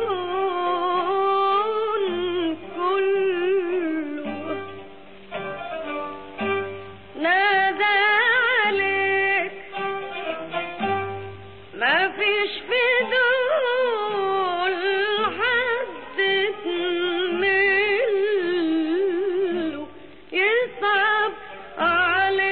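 Classic Egyptian ensemble music from an old recording: an ornamented melody of sliding, wavering notes over plucked and bowed strings, with a steady held tone underneath. The sound is dull and lacks high treble.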